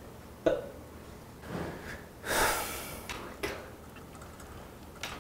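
A man breathing loudly and sighing in impatience: several short breaths, the longest and loudest a little over two seconds in.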